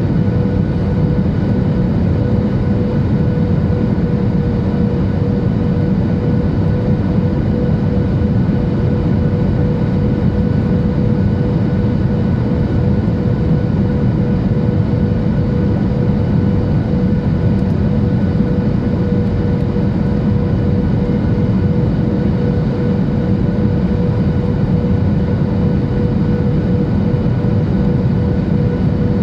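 Steady in-flight cabin noise of a Boeing 737-800 on descent: a constant low rumble of airflow and its CFM56-7B turbofan engines, with a steady mid-pitched hum over it.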